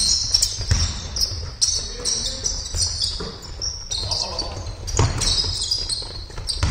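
Basketball game sound: sneakers squeaking repeatedly on the court floor, the ball thumping as it is dribbled, and players calling out now and then.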